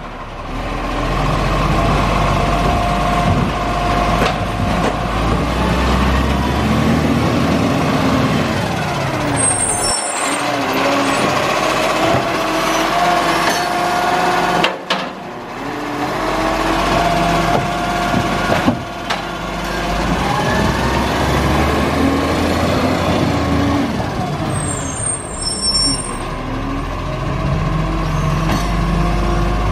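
Garbage truck on its collection run, its diesel engine revving up and down over and over, with a short high air-brake squeal about a third of the way in and again near the end.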